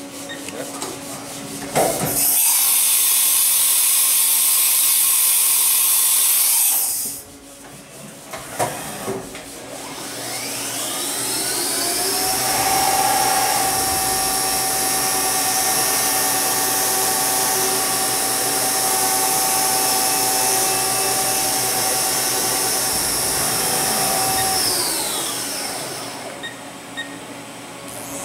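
Haas VF-2 CNC vertical machining centre: a loud hiss of air for about five seconds and a couple of clunks, then the spindle whining up to speed, running steadily, and winding down near the end.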